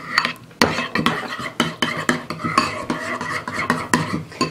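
A metal spoon stirring a thick mayonnaise, oil and vinegar dressing in a ceramic bowl. The wet scraping is broken by repeated clinks of the spoon against the bowl.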